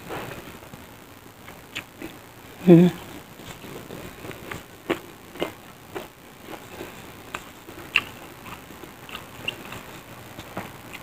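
A person chewing fried tempe mendoan close to the microphone: scattered sharp mouth clicks and smacks, with one short hum from the voice about three seconds in.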